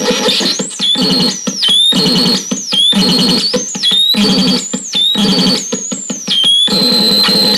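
Electronic synthesizer sounds in a stuttering, repeating pattern: a low buzzy note under high whistling tones that swoop downward, chopped into short pieces about once or twice a second.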